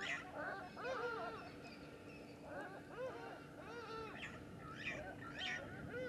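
Birds calling: a run of short, repeated calls that each rise and fall in pitch, with thin high chirps between them.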